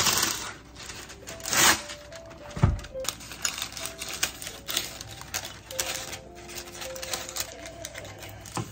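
Parchment paper being handled: pulled from its box and torn off, then rustled and crinkled as it is shaped into small metal baking pans, with a dull thump about two and a half seconds in.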